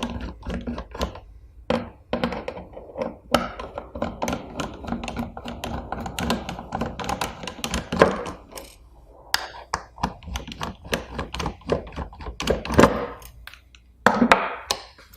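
Small screws being backed out of a handheld thermometer's faceplate with a screwdriver and handled: an irregular string of clicks, taps and light knocks, with a louder knock about eight seconds in and another near thirteen seconds.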